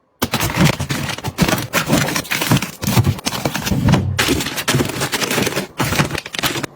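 Close-up handling of small items and packaging: a dense, continuous run of clicks, taps and rustles.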